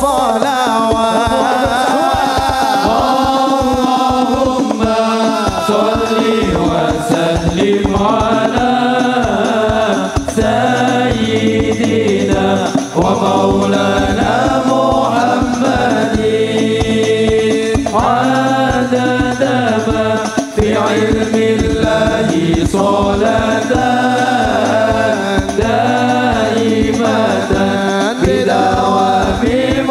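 Music: a man's voice singing an Islamic devotional chant (sholawat) through the sound system, with accompaniment and a steady percussion beat.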